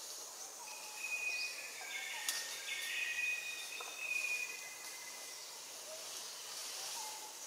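Tropical forest ambience: a steady high insect hiss, with a run of high, held whistled calls from about one to four and a half seconds in and a single sharp click a little after two seconds.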